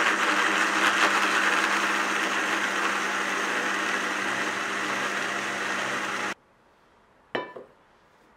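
Small electric kitchen appliance motor running steadily at high speed, then switched off abruptly about six seconds in; a single short click follows about a second later.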